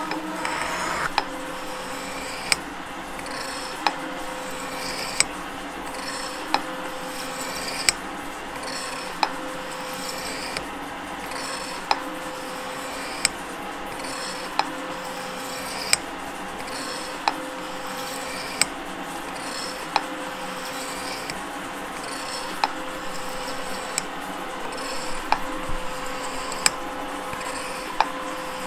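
Gould & Eberhardt metal shaper cutting steel: a steady mechanical hum from the running machine, with a sharp clack repeating evenly about every 1.3 seconds, once per stroke of the ram.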